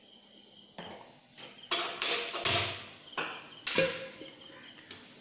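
A cooking pan being handled on a steel gas stove: a quick run of about seven sharp metal clanks and knocks, some ringing briefly.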